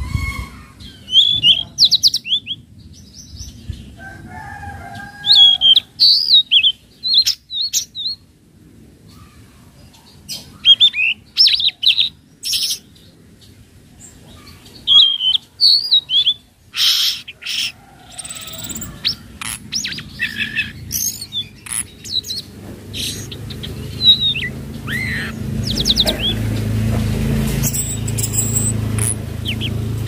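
Young, still speckled ('trotol') tledekan laut singing: bursts of quick, high whistled notes that rise and fall, broken by short pauses and a few sharp clicks. A low rumble builds up in the second half.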